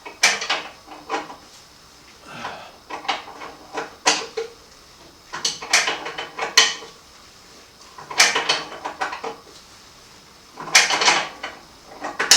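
Wrench clicking and clanking against the motorcycle's rear axle nut as it is tightened, in about six short bursts of metal-on-metal clatter with pauses between.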